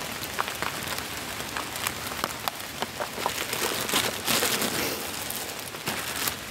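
Steady rain falling, with many sharp ticks of single drops striking close by, and a brief louder rush of noise about four seconds in.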